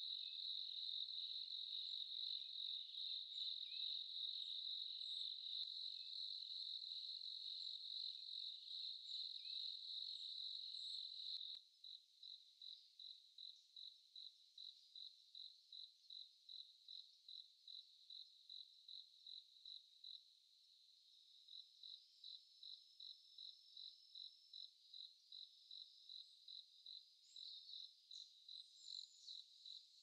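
Insects singing a steady high-pitched trill, which about eleven seconds in turns into a regular run of short chirps, a few a second, broken briefly near the twenty-second mark.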